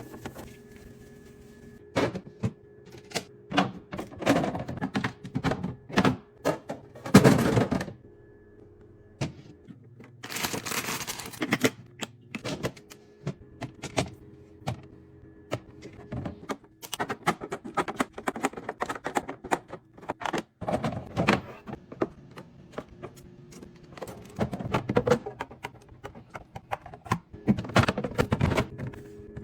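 Groceries and containers being put into a fridge: irregular clicks, taps and knocks of plastic containers, jars and bottles set down on the shelves, with a few longer rustles, the longest about ten seconds in.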